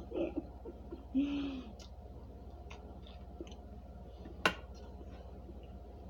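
Person eating microwaved potato starch with the mouth closed: a short murmured hum about a second in, then faint mouth clicks and one sharp click past the middle, over a steady low electrical hum.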